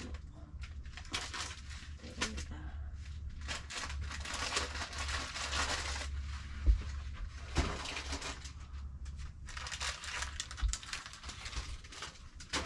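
Rustling and crinkling of plastic bags and cardboard boxes being handled and sorted, in irregular bursts, with one sharp thump about seven seconds in.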